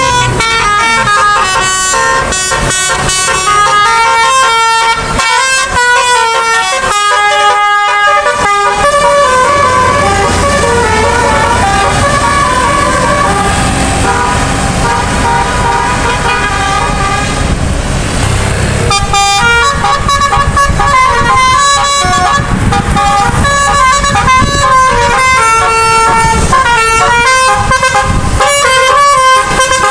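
Bus 'Basuri' telolet musical air horn playing a tune of quick, stepped notes, one after another without a break. From about a third of the way in, a low rumble sits beneath the horn for about ten seconds.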